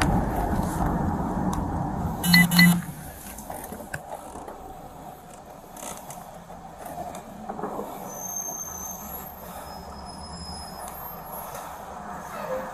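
Steady vehicle running noise, broken about two and a half seconds in by two quick electronic beeps, the loudest sound.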